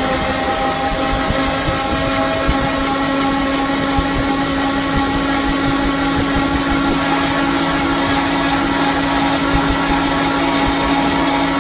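Gyroplane's pusher engine and propeller running at a steady speed with the aircraft held on the runway before take-off, a constant droning tone, with irregular low buffeting of air on the microphone.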